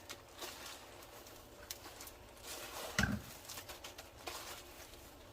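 Soft, scattered taps and handling noises from food preparation, with one brief, louder low thump or murmur about three seconds in.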